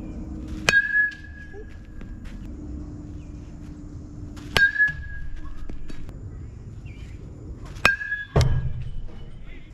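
Three bat-on-ball hits during batting-cage practice against live pitching, about every three to four seconds. Each is a sharp crack that rings on briefly at one pitch, followed within half a second by a duller thud, heaviest after the last hit.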